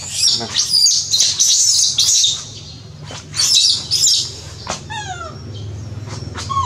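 Infant macaque crying with shrill, high screams in two long bouts, then a few short falling squeals about five seconds in.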